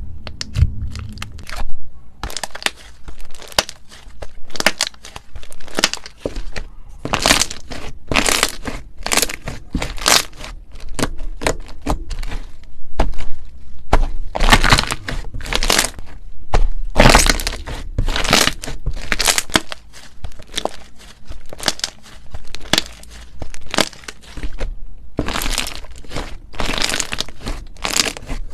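Slime being handled and squeezed by hand, giving off dense runs of sharp crackles and crunches in clusters.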